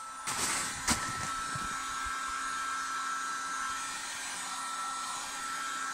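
Electric heat gun blowing steadily, getting louder just after the start, with a single sharp knock about a second in.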